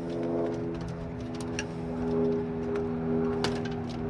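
A few light clicks and ticks of a wire plug being worked loose from a TV circuit board, over a steady hum of held low tones.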